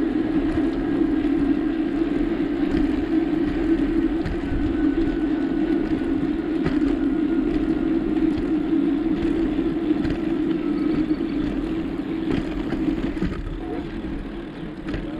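Steady rushing road noise of a bicycle being ridden: a constant even hiss with a low hum, easing slightly near the end.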